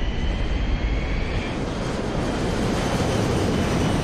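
Boeing 747 jumbo jet taking off: its four jet engines running at takeoff power, a dense steady noise with a thin turbine whine that rises in pitch through the first second and a half.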